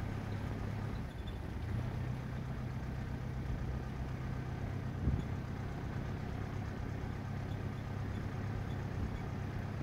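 Pickup truck's engine running at a low, steady speed as it drives slowly over a dirt road, with a single knock about five seconds in.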